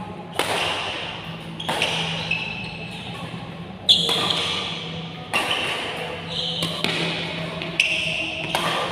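Badminton rackets striking the shuttlecock in a fast doubles rally, about seven sharp hits a little over a second apart, each echoing in a large hall. A steady low hum runs underneath.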